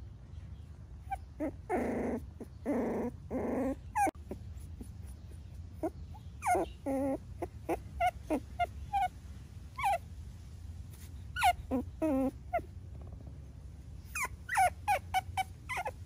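Miniature Schnauzer puppy whimpering: a run of short, high whines that slide down in pitch, with three longer, fuller cries about two to four seconds in.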